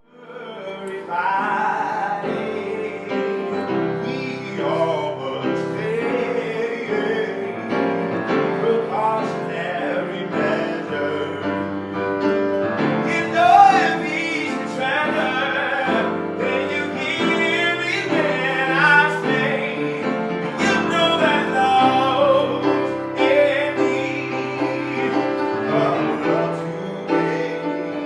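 A song with a voice singing over piano and band accompaniment.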